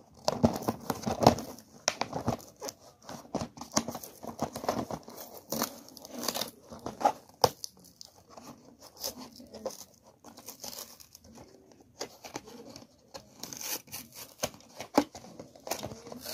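Clear plastic blister pack crinkling and its cardboard backing tearing as a toy is worked out of the packaging by hand. It comes as irregular crackles and rips with short pauses.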